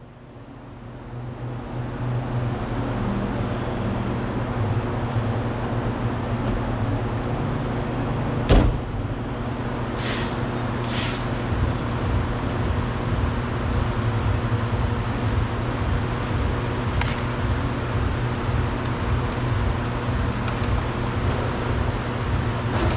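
A steady mechanical hum, with a single sharp knock about eight and a half seconds in and a few fainter clicks later, while work goes on at a car door.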